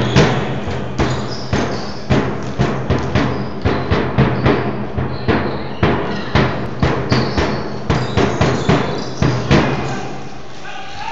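Music with a strong drum beat over a steady bass line; the beat stops about ten seconds in.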